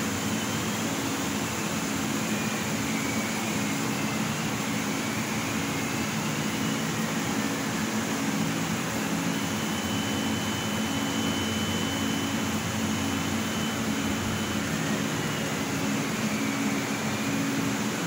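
Bao Yuan Tong CNC laser cutter running while cutting a sheet: a steady mechanical hum with faint high whines that rise and fall in pitch as the cutting head travels, and one held whine for about five seconds midway.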